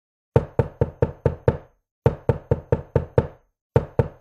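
A series of sharp knocks in runs of about six, roughly four a second, with short pauses between runs. Each knock rings briefly, and another run starts near the end.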